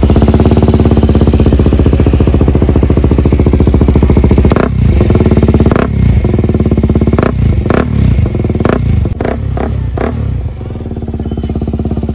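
A KTM motorcycle's single-cylinder engine runs loud and steady through an aftermarket Akrapovič slip-on exhaust. Several sharp cracks cut in over it between about four and a half and ten seconds in, and the engine settles slightly quieter near the end.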